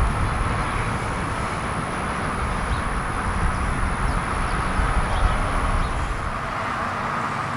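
Steady urban outdoor background: a continuous rumble and hum of traffic, with no distinct events.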